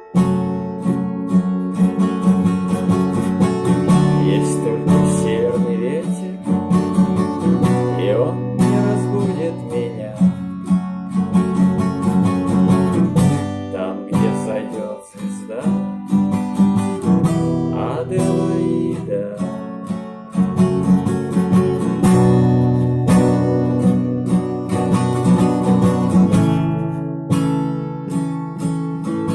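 Acoustic guitar playing an instrumental passage of strummed and plucked chords.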